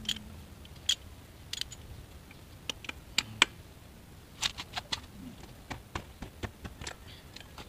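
Scattered sharp metal clicks and clinks, about fifteen at uneven intervals, of a 24 mm socket and wrench being handled and fitted onto a scooter's clutch nut.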